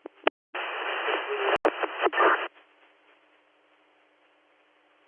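Two-way fire department radio channel: a quick squelch click, then about two seconds of loud static with a steady high whine as a unit keys up, cut off abruptly. Faint radio hiss follows, with a few clicks near the end.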